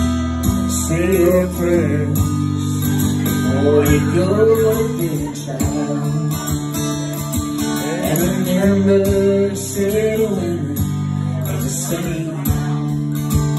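A man singing over a strummed acoustic guitar, live: sung phrases with short gaps between them over steady strumming.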